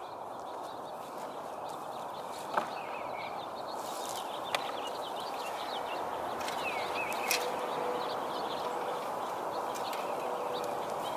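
Outdoor ambience: small birds chirping over a steady rushing background that grows slightly louder, with three faint sharp clicks spread through it.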